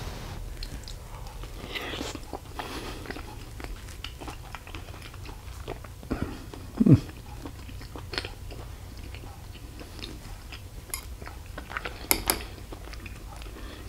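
A person chewing a mouthful of hot chicken and stuffing casserole, with small wet mouth clicks. About seven seconds in comes a short hummed "mm".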